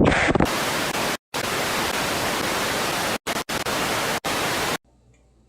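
Loud static hiss, even across the whole range like white noise, that drops out abruptly to silence several times and stops sharply near the end.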